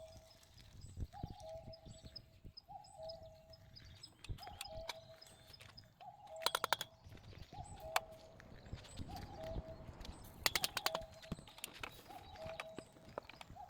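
A bird repeating a falling two-note call about every second and a half. Two short bursts of rapid clicking come about halfway and about two-thirds of the way through.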